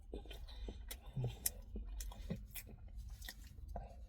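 A person chewing and biting into a beef kebab in a soft bun, with irregular soft crunches and mouth clicks over a low steady hum.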